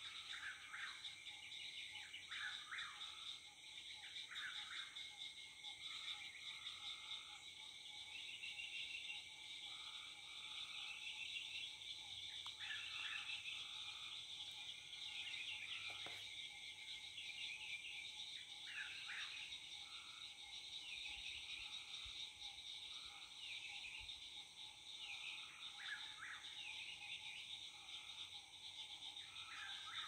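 Evening chorus of frogs and insects, a steady high trilling, with short calls repeating every second or two over it. A single brief click about halfway through.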